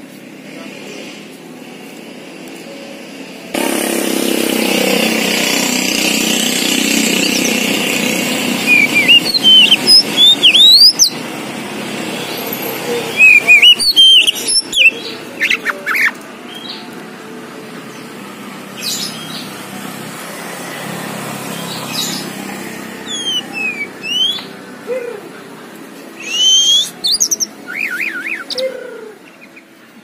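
Oriental magpie-robin (kacer poci) singing in its cage: short, sharp whistled notes that sweep up and down, given in clusters at intervals. A steady rushing noise begins a few seconds in under the first phrases and eases off by about the middle.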